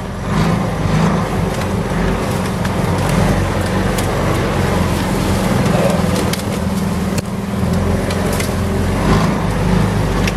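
A golf cart's swapped-in 6.5-horsepower small engine running steadily as the cart drives over rough wooded ground, with occasional sharp knocks as it bounces along.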